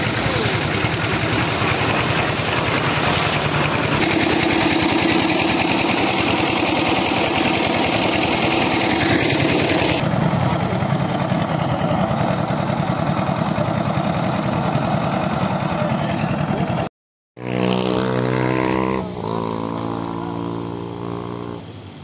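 A loud engine running steadily, with a lot of rushing noise. The sound drops out briefly about seventeen seconds in, then returns as an engine hum with a steady pitch that steps down about two seconds later.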